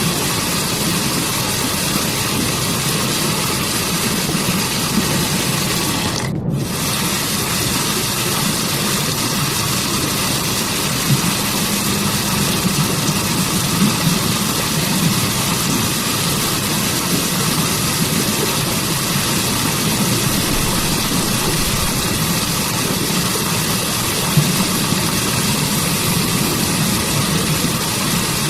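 Waterfall: water rushing steadily, an even hiss without rhythm, with a momentary dip about six seconds in.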